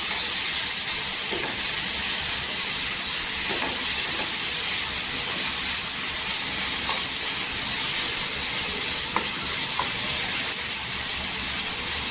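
Grated apple sizzling in hot oil as it is stirred and sautéed in the pan: a steady high hiss, with a few faint knocks from the stirring.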